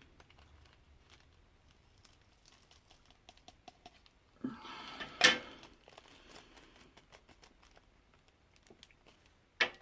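Soft, irregular small clicks and taps of a diamond-painting pen picking up square resin drills and pressing them onto the canvas, with a brief louder rustle about five seconds in.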